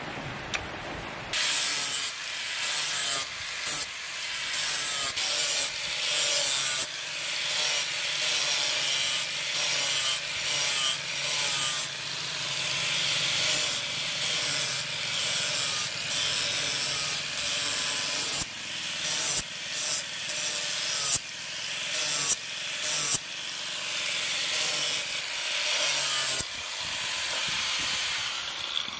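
Angle grinder with an abrasive sanding disc working the flat of a steel knife blade: a harsh scraping hiss that cuts in and out in repeated passes, about once a second, over the grinder motor's faint steady hum. It starts about a second in and stops near the end.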